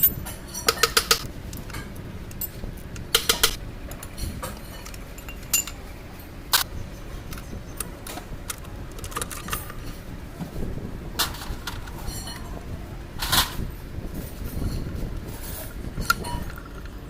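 Irregular metallic clinks and knocks, a few at a time with brief ringing, as steel parts and tools are handled on a TATA GB 27 truck gearbox under repair.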